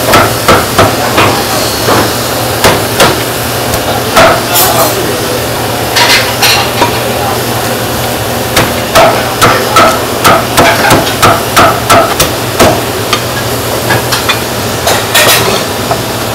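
Meat cleaver chopping through a roast duck carcass on a thick round wooden chopping block: quick runs of sharp chops, about three a second, with a short pause in the middle.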